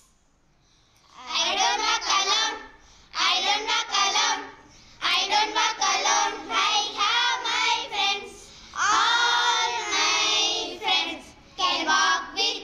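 A group of young girls singing together in unison, in short phrases with brief pauses between them, beginning about a second in.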